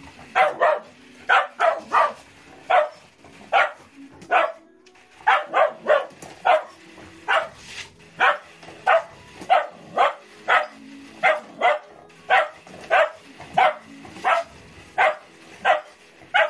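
Collie-type dog barking repeatedly, one or two sharp barks a second, with a brief pause about four and a half seconds in.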